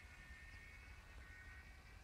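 Near silence: the faint, distant steady whine of a radio-controlled model trike's motor high overhead, drifting slightly in pitch, over a low rumble.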